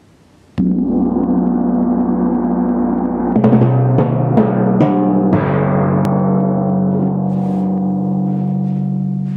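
A large Chinese chau gong is struck once about half a second in and rings on with a dense, shimmering tone. From about three seconds in, timpani are struck about five times in quick succession at different pitches, and the drums ring on and slowly fade.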